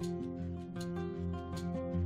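Background music: sustained chords with a steady beat.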